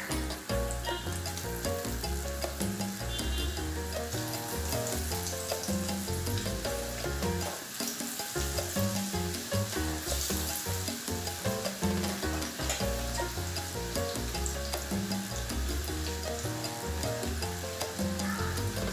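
Spiced cauliflower pieces frying in hot oil, a steady sizzle throughout, with background music playing over it.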